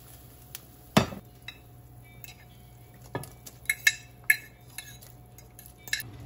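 A heavy cast-iron pot lid set down with a loud clank about a second in, then a metal fork scraping and clinking against a ceramic dish and the pot rim as chicken is tipped into the pot: a handful of sharp clinks, over a steady low hum.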